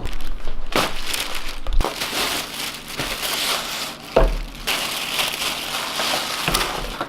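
Crinkling and rustling of a plastic takeout bag being handled, with a few dull thumps from containers set down.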